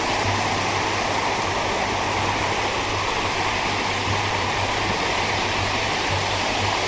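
Steady rush of calm sea surf washing on the beach, with a low steady hum underneath.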